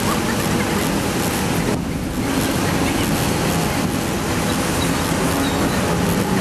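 Steady rumble of a heavy diesel engine running under a loud, even rushing noise, as from heavy tow-truck wreckers powering their booms during a lift.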